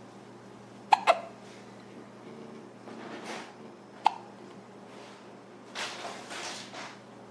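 A person hiccupping: two sharp hiccups in quick succession about a second in, and a third about four seconds in, with softer breathy sounds between.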